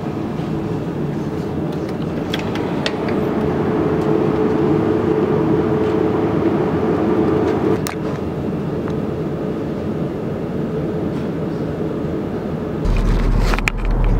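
Steady hum and fan noise of refrigerated drinks chillers in a shop, with a held mid-pitched tone for several seconds and a few faint clicks. Near the end it switches to the low drone of a car's cabin while driving.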